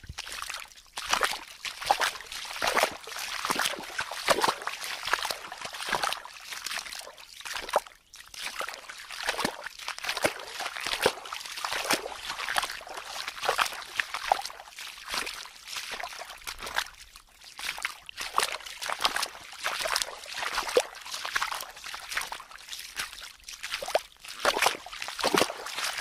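Feet wading through a shallow stream: irregular sloshing and splashing of water with each step, continuing throughout.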